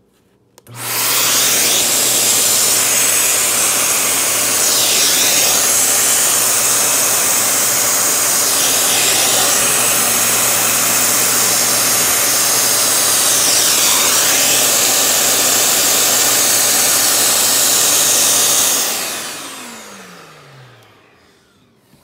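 HART 3-in-1 wet/dry shampoo vac motor switched on at the button on its hose handle, starting up about a second in and running with a loud, steady suction rush over a hum. Near the end it is switched off and spins down, fading with a falling pitch.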